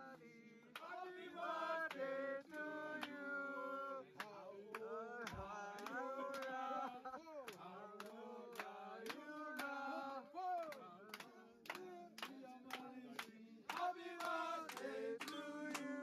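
A group of men singing a song together in chorus, with steady rhythmic hand clapping.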